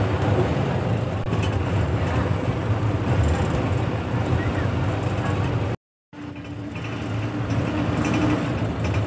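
Steady engine rumble and road noise heard from inside a moving bus, with a brief cut to silence about six seconds in.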